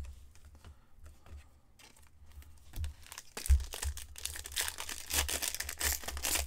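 A trading-card pack wrapper being torn open and crinkled, with a few light handling clicks first and a busier run of tearing and crackling from about three and a half seconds in, mixed with dull handling thumps.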